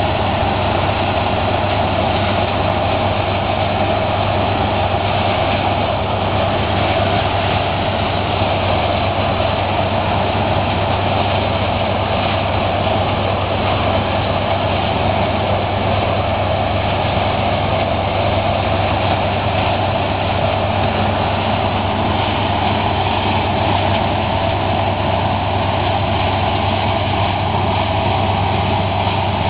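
Zmaj 170 combine harvester working in the field: its engine and threshing machinery run with a loud, steady drone.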